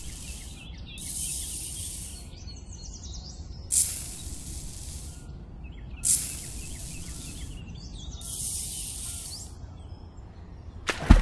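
Repeated short hissing spray bursts, four in all, each about a second long and roughly two and a half seconds apart; a sharp knock right at the end.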